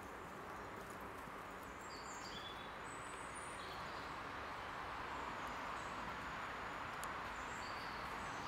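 Woodland ambience: a steady background hiss with a few short, high bird chirps, a cluster about two to three seconds in and another near the end.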